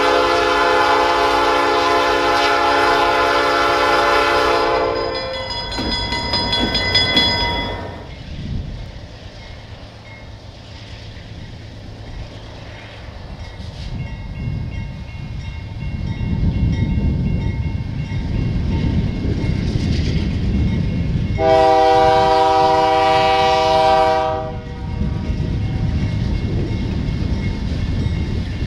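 Diesel freight locomotive air horns: a long blast at the start, a higher-pitched chord a few seconds later, and another long blast about 22 s in. In between, the low rumble of an approaching diesel freight train grows louder.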